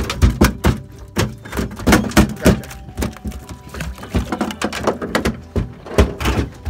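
Rapid, irregular knocks and thumps, several a second, over faint background music.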